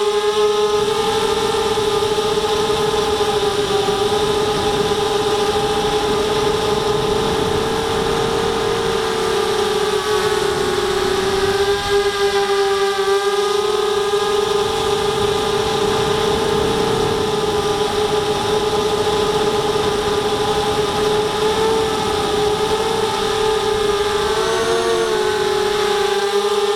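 ZMR250 quadcopter's four motors and propellers whining steadily, heard close up from the onboard camera, the pitch wavering slightly as the throttle changes in flight.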